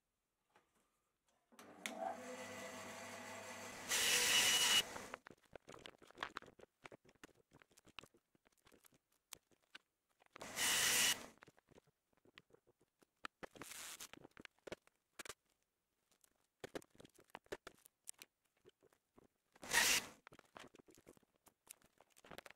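Band saw cutting a wooden board. The motor hum comes in about one and a half seconds in, followed by a loud cut, and further short loud cuts come around ten, thirteen and twenty seconds in. Light knocks and scrapes of the wood being handled fill the gaps.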